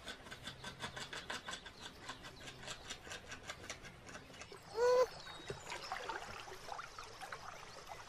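Young beaver gnawing on a stick with its incisors: rapid, regular scraping clicks, about five a second, for the first four seconds. About five seconds in comes a short call rising in pitch, then only faint scattered sounds.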